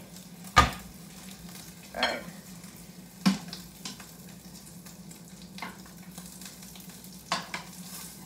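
A Beyond Meat burger patty and sausage sizzle faintly as they fry in a pan. Several sharp clinks and knocks of a utensil against the pan are scattered through, the loudest about half a second in.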